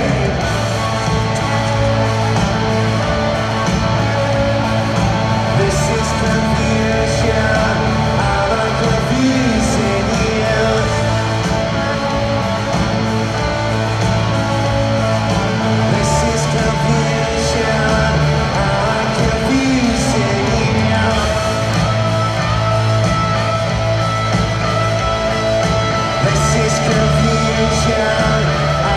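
Live rock band playing loud, with electric guitars, heard from high in the stands of an arena.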